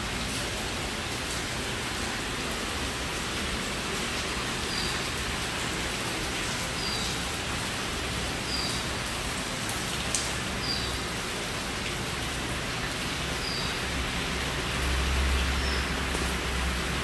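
Steady rain falling into a courtyard pool and onto paving, with short high chirps every couple of seconds and a low rumble that swells near the end.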